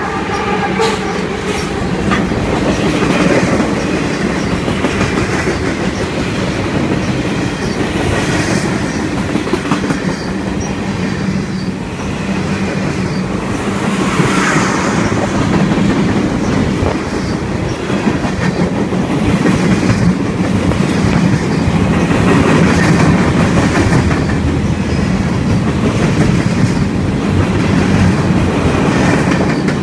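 Freight train cars rolling past at close range: a steady, loud rumble of steel wheels on rail.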